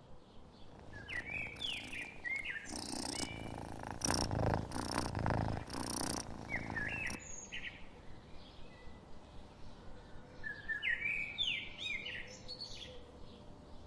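Birds chirping in quick series of short chirps, with a louder stretch of rough noise between about two and six seconds in.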